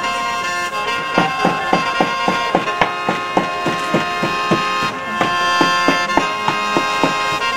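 A cleaver chopping fish on a round wooden chopping block in a quick, even rhythm of about three to four chops a second. The chops start about a second in, pause briefly around the middle and then resume, over background music with sustained reedy tones.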